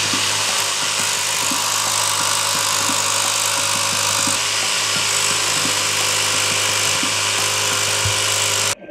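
Corded jigsaw running steadily as its blade cuts through a fibreboard (MDF) sheet, with a constant motor hum under the sawing noise. It stops abruptly near the end.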